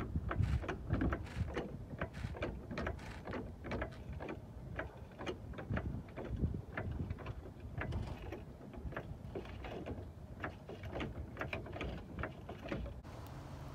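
Irregular metallic clicks and knocks, a few each second, from hand work under a raised car resting on a floor jack. They stop near the end.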